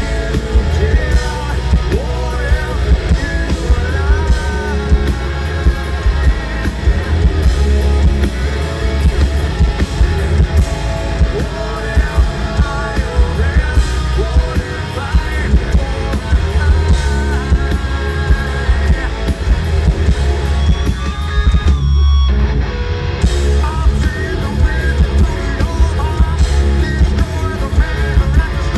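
Live hard rock band playing loud: distorted electric guitars, bass and pounding drums under a male lead singer.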